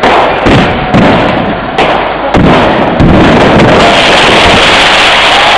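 Fireworks display: loud firework bangs in quick succession, about every half second, merging about three seconds in into continuous dense crackling and banging.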